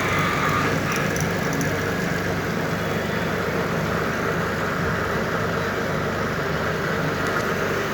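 A motor running with a steady, even hum.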